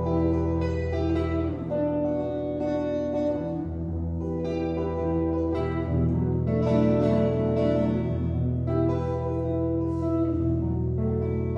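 Solo guitar playing an instrumental passage: picked notes ringing over sustained low bass notes that shift about every two seconds.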